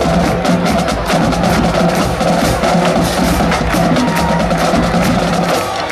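Marching drumline playing: snare drums, tenor drums and bass drums in a dense, fast, steady rhythm of stick strokes and rim clicks.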